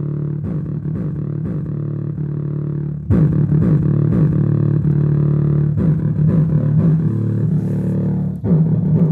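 A song playing through a homemade audio amplifier into a small 3-inch speaker, with the bass turned fully down so only the voice and treble channel sounds. The music gets louder and fuller about three seconds in.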